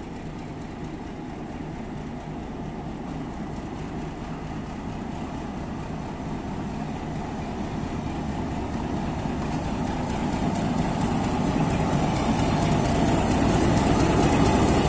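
A Pakistan Railways diesel-electric locomotive's engine runs under power as it pulls a passenger train out. It grows steadily louder as the locomotive comes up close and passes.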